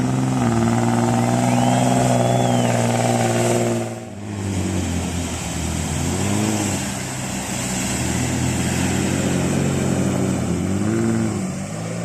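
Off-road 4x4 engine running hard at high, steady revs, dropping off suddenly about four seconds in, then revving up and down in several swells.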